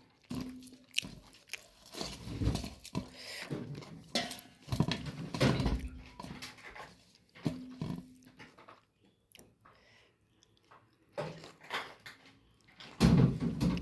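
Chewing and crunching of fried pakora fritters, in irregular bites and crackles with brief pauses.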